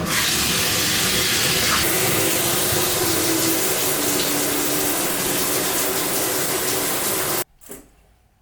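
Water running hard from a tap in a steady rush, stopping abruptly about seven seconds in.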